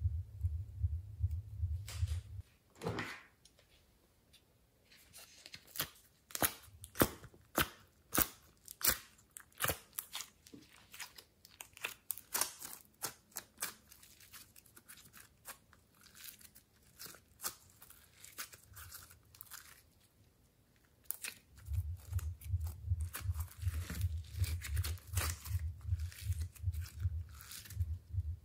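Slime being stretched, folded and squeezed by hand, giving sticky crackles, pops and clicks. A low rhythmic throb runs underneath at the start and again over the last several seconds.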